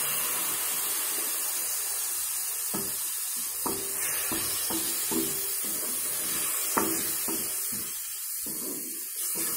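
Tamarind water sizzling in a hot pan of fried onion, tomato and curry powder. A wooden spatula stirs and scrapes the pan, with soft knocks about once or twice a second from roughly three seconds in.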